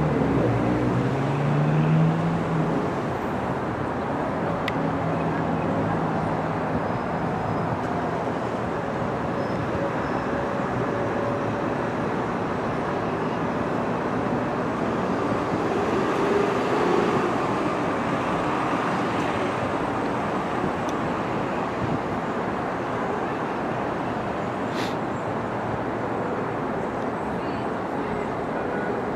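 Bombardier R62A subway train running along the elevated track: a steady rumble of wheels on rails, with a low rising whine in the first few seconds.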